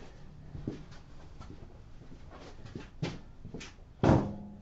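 Scattered light knocks and clicks of someone moving about and handling tools in a small workshop, with one louder knock about four seconds in that rings briefly afterwards.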